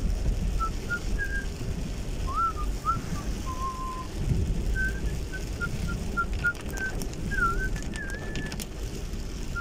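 A person whistling a tune of short notes, a few of them sliding up or down in pitch, over the steady low rumble of the car and road noise inside the cabin.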